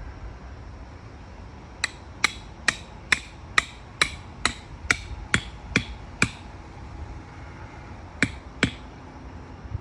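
Hammer blows: eleven sharp, ringing strikes at a steady pace of about two a second, then a pause and two more strikes near the end.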